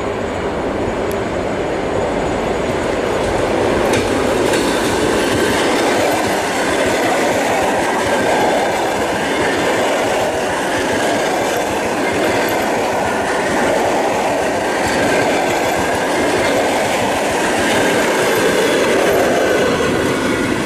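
ЭД4М electric multiple unit passing close by at speed: a steady, loud noise of wheels running on the rails, with a faint high tone held over it.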